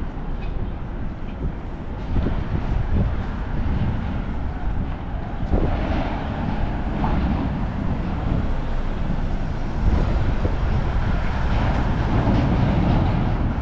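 Steady, loud low rumble of city street traffic, with heavy vehicles passing.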